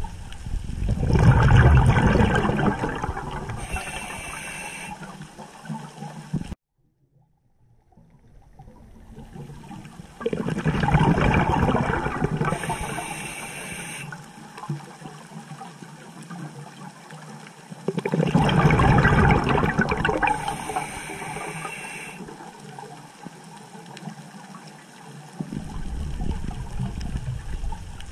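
A scuba diver breathing through a regulator underwater: a rush of exhaled bubbles about every eight seconds, each with a short high hiss from the regulator. The sound cuts out for about two seconds around a quarter of the way in.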